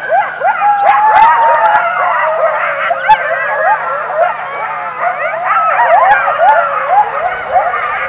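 A group of coyotes howling and yipping together: many high, wavering voices overlap, with short rising-and-falling yips mixed through the chorus.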